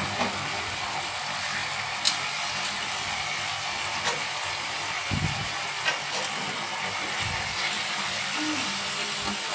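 Chicken pieces in barbecue sauce sizzling steadily in a non-stick frying pan, with a few light clicks scattered through.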